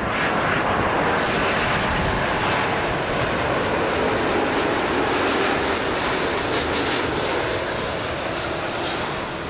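Airbus A330-300's Rolls-Royce Trent 700 turbofans on landing approach, passing low overhead. A loud, steady jet rush that eases off toward the end as the airliner moves away down toward the runway.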